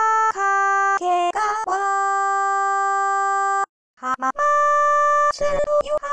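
A synthesized singing voice sings the Tokaido Shinkansen station names Kakegawa, Hamamatsu and Toyohashi, one syllable per note. The notes hold dead-steady pitches with abrupt starts and stops, and one long held note is followed by a short break about two thirds of the way through.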